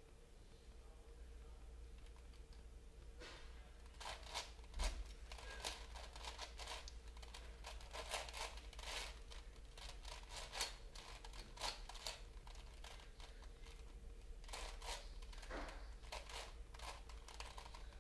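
Plastic Rubik's-style puzzle cube being turned by hand: rapid runs of clicking and clacking as its layers are twisted. The turning starts a few seconds in, pauses briefly about two-thirds of the way through, then resumes.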